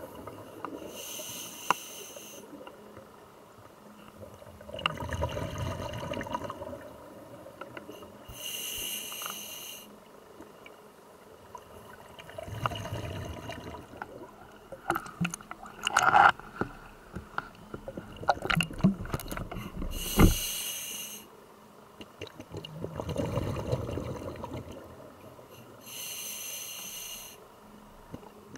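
A scuba diver breathing through a regulator, heard underwater: a short hiss on each inhale alternates with a low rumble of exhaust bubbles on each exhale, about four breaths in all. A cluster of sharp clicks and knocks comes in the middle.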